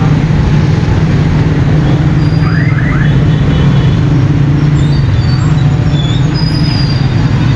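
Steady low drone of street traffic, motorcycle and motorcycle-rickshaw engines running close by in a crowded street. About two and a half seconds in come three short rising chirps.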